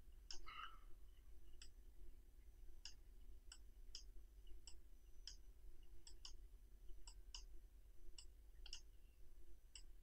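Faint, irregular clicks of a computer mouse button, about fifteen of them, several in quick pairs, over a low steady hum.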